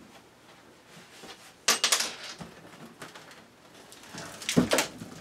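A cut-out section of tiled plywood floor being worked loose and lifted out of its opening: short sharp knocks and scraping of wood, a couple about two seconds in and a louder knock with a dull thud near the end.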